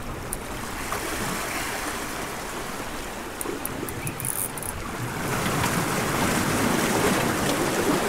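Sea surf washing on the shore: a steady rushing that swells louder about five seconds in.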